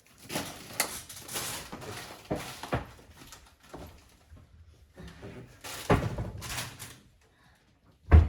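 A string of knocks and rustling clatter, like things being handled and set down, then a single loud, deep thump near the end, as of a door or cupboard shutting.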